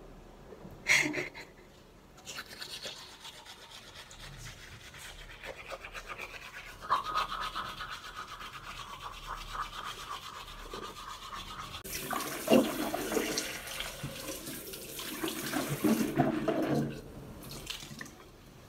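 A short knock about a second in, then a manual toothbrush scrubbing teeth in quick back-and-forth strokes. About twelve seconds in, water runs from a tap with splashing for a few seconds as she rinses at the sink.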